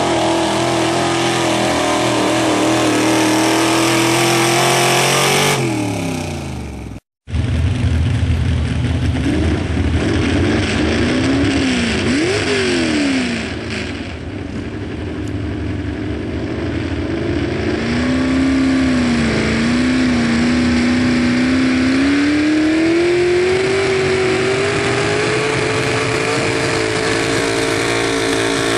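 Pulling pickup's engine running at high revs under load against a weight sled, then winding down about five and a half seconds in. After a brief cut-out, it is blipped up and down a few times, then climbs steadily in pitch again under load from a little past halfway.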